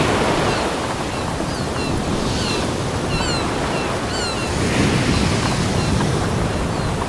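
Ocean waves breaking and washing up a beach, a continuous surf noise that swells with a fresh wash about five seconds in. Short high chirps repeat over the surf through the first half.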